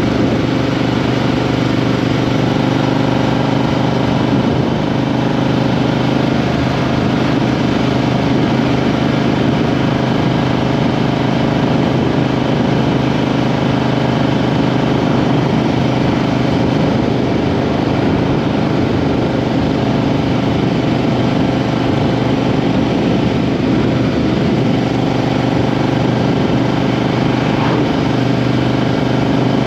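Triumph Street Twin 900cc parallel-twin engine running at a fairly steady engine speed, heard from beneath the seat.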